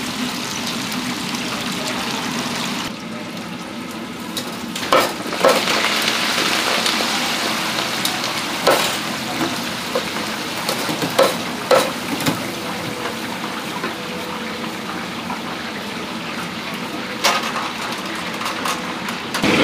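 Crabs deep-frying in a commercial fryer: hot oil sizzling steadily, with occasional sharp metal clanks of the wire fry baskets and tongs.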